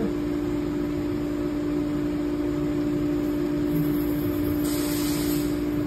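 ANCA MX7 Linear CNC tool and cutter grinder running with a steady two-tone hum while its axes are jogged. A short hiss comes in about five seconds in and stops after about a second.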